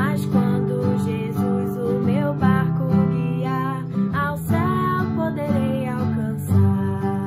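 A woman singing a song in Portuguese to her own strummed acoustic guitar accompaniment.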